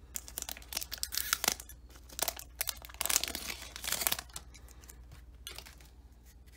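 A Pokémon booster pack's foil wrapper being torn open and crinkled, a quick run of rips and crackles that dies down after about four seconds into faint rustling.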